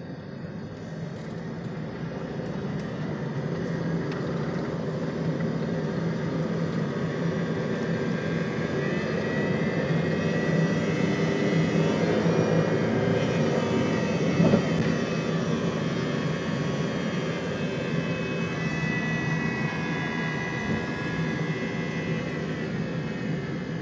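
Loud drone and whine from a 2004 Saturn VUE 2.2L running at high revs under acceleration while the car struggles to pick up speed. It swells over the first several seconds, is loudest about halfway through, then eases slightly. The owner suspects the CVT transmission is not working.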